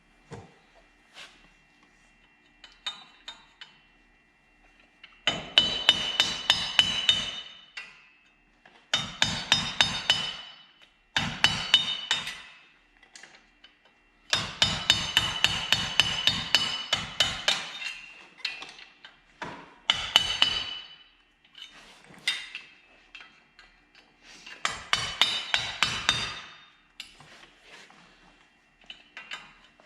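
A hammer striking metal in six bursts of quick blows, about three or four a second, with short pauses between the bursts.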